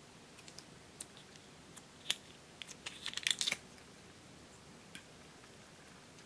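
Clear jelly slime being worked out of a rigid plastic container: scattered small clicks, then a quick run of crackling, sticky clicks about three seconds in as the slime comes free of the plastic.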